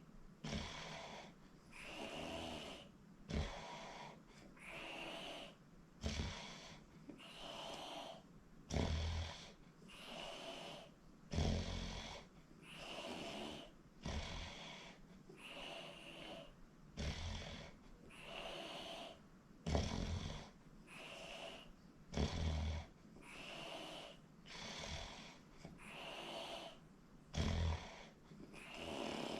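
A sleeping person snoring in a steady, quick rhythm of wheezy breaths, with a few sharper, louder snorts along the way.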